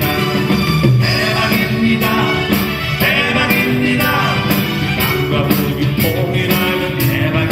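Live rock band music, with drums keeping a steady beat under guitar and keyboard, and singing over it.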